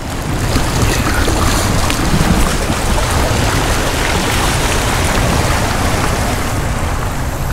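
Fast river current rushing over a shallow riffle around a kayak, a steady hiss of moving water, with a low rumble of wind on the microphone.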